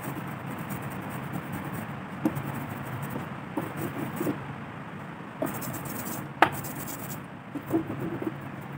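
Rubber brayer rolling printing ink back and forth over a carved woodcut block, a sticky rubbing sound over a steady background hiss. A few light knocks of the roller and block, with one sharp click about six and a half seconds in.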